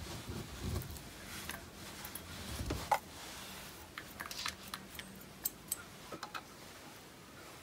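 Kitchen handling sounds, with a knife and chopsticks lightly clicking and tapping against a stainless steel bowl on a plastic cutting board. There are a few soft knocks in the first three seconds, then scattered small clicks.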